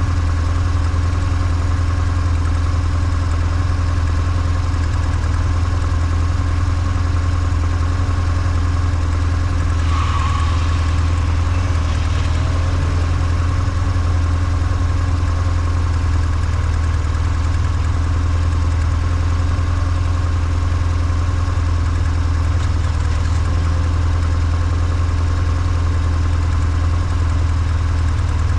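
BMW R1150GS air/oil-cooled flat-twin boxer engine running at a steady, unchanging pitch. A brief higher-pitched sound cuts in about ten seconds in.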